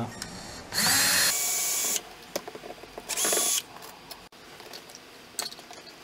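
Cordless drill-driver run in two short bursts, the first spinning up and running about a second, the second about half a second, backing out the mounting screws of a wall switch; a few light clicks follow near the end.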